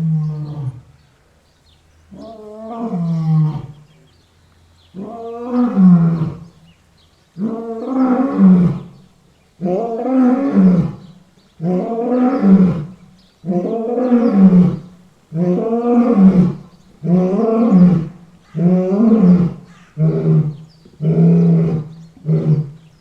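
Lion roaring: a long bout of more than a dozen deep roars, the first ones long and a couple of seconds apart, then shorter and coming faster toward the end.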